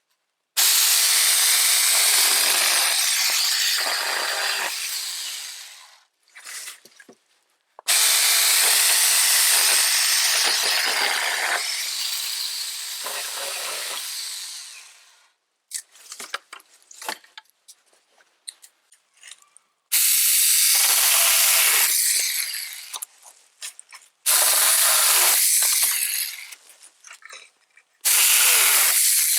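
Battery-powered mini chainsaw cutting branches into firewood lengths, in five runs: two long ones of about five and seven seconds, then three shorter ones. Each run starts abruptly and fades out. Short clatters and knocks of wood being handled fall between the cuts.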